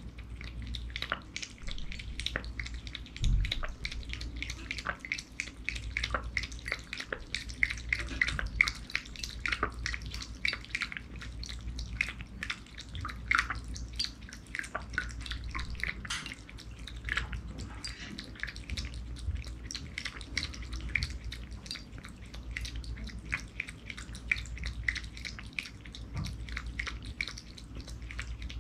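A cat eating from a ceramic bowl: a dense, irregular run of small clicking and smacking chewing and licking sounds, with a steady low hum underneath.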